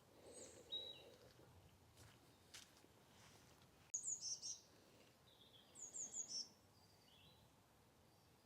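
Small songbirds calling in a garden: high, quick, falling chirps, a few near the start, then two bursts of three or four notes about four and six seconds in.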